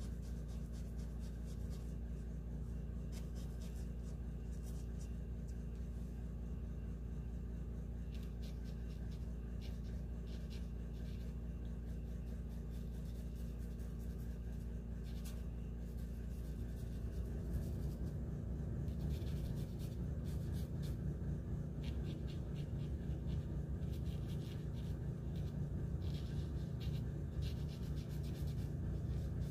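Faint scratchy strokes of a fine-tipped art tool on paper, coming in short clusters, over a steady low hum that grows louder about two-thirds of the way through.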